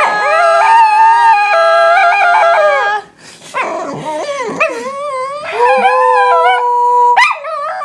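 Pet dog howling on the command to sing: a long drawn-out howl of about three seconds, a short break, then a second wavering howl of about four seconds, and a new one starting near the end.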